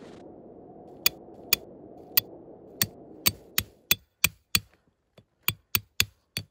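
A hatchet's poll hammering a tent stake: a run of about fifteen sharp, ringing strikes that come faster after the first few. A low steady rushing noise underneath fades out partway through.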